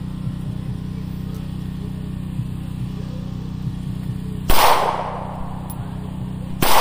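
Two shots from a Taurus G2 pistol about two seconds apart, the first about four and a half seconds in and the second near the end, each followed by a short echo. A steady low hum runs underneath.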